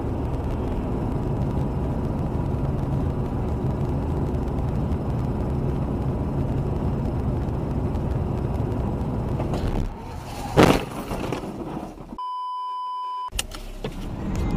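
Steady road and engine noise inside a moving car's cabin, recorded by a dashcam. About ten seconds in comes a single sharp bang. Soon after, a steady high beep lasts about a second while all other sound is cut out beneath it, like a censor bleep.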